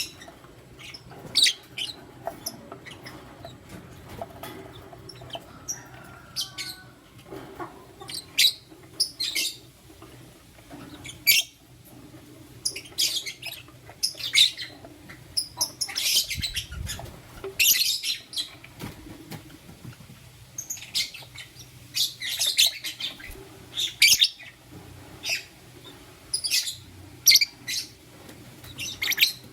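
Pair of lovebirds chirping: short, high chirps in scattered bursts, busier in the second half.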